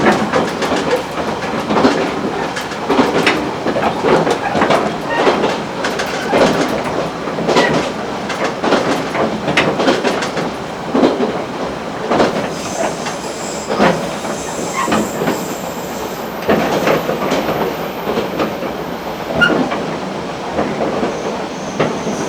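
AN-8800 diesel railcar running along the line, heard from inside the car: steady running noise with the wheels clacking over rail joints, and a thin high squeal for several seconds in the middle.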